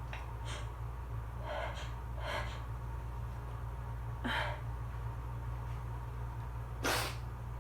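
A woman's short breathy gasps and sniffs, several spaced a second or two apart, the sharpest near the end, as her breath catches during an allergy sneezing fit.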